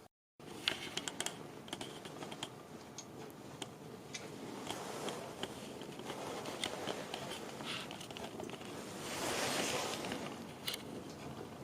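Irregular light clicks and taps with rustling, like keys being pressed or small parts being handled, with a brief swell of rustling hiss about nine seconds in.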